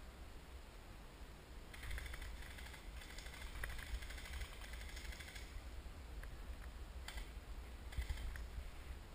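A light crackling rustle, a run of small clicks from about two seconds in that stops after five, with two brief crackles later, over a faint steady low rumble.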